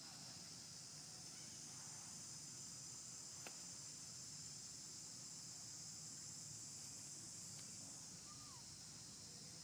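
Faint, steady high-pitched drone of insects, with a single faint click about three and a half seconds in and a short faint chirp near the end.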